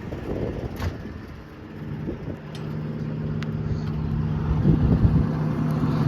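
Doosan 255LC-V track excavator's diesel engine running steadily, growing louder over the last few seconds.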